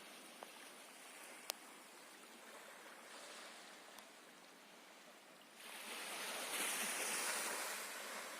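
Sea water washing and lapping, with a louder surge of water about two-thirds of the way in that fades near the end; a couple of faint clicks.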